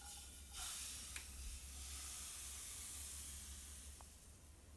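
Thin pancake batter sizzling faintly as it is poured into a hot oiled frying pan, the hiss starting about half a second in and slowly dying away, with a couple of faint ticks.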